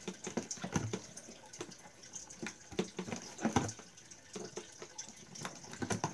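Scissors snipping at cardboard and plastic packaging, with the box rustling and crinkling as it is handled: a run of short, irregular clicks.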